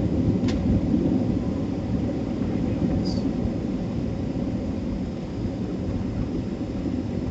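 Airliner cabin noise on final approach with the flaps down: a steady low rumble of engines and airflow heard through the fuselage. A faint high click comes about half a second in, and a brief high chirp about three seconds in.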